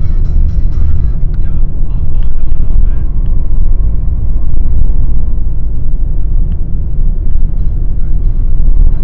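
Steady loud low rumble of engine and road noise inside a moving truck cab.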